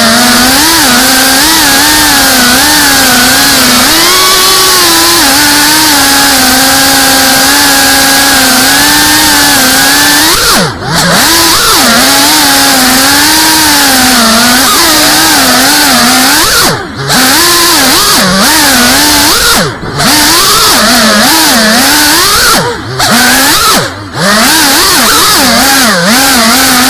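FPV quadcopter's brushless motors whining, heard through the onboard camera, their pitch wavering up and down constantly as the quad's unstable PID tune makes it hunt. In the second half the sound cuts out briefly several times as the motors drop off and spool back up.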